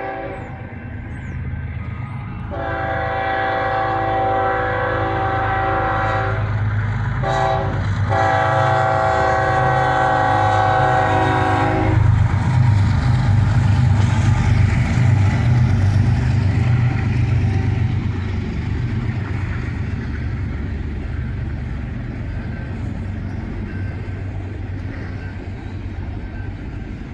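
BNSF GE ES44C4 diesel locomotives approaching with the air horn sounding a chord: a long blast, a short one, then a final long blast, as for a grade crossing. The horn stops about twelve seconds in, and the locomotives' deep engine rumble passes, then fades into the steady rolling of the intermodal train's cars.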